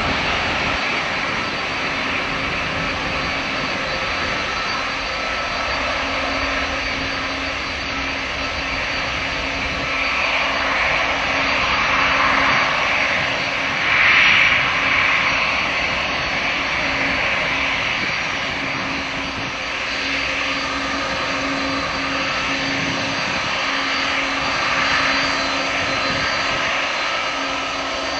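Airbus A300B4-622R's twin turbofan engines running at taxi power as the freighter rolls by: a steady rushing hiss with a steady low hum under it, swelling louder about halfway through.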